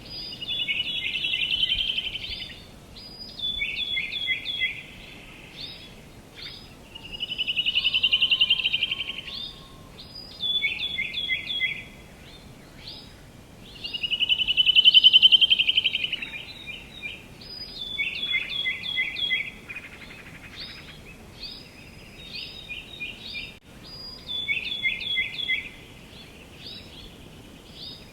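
Songbirds singing outdoors: runs of short, quick chirps repeated throughout, broken three times by a louder trill of about two seconds that swells and fades.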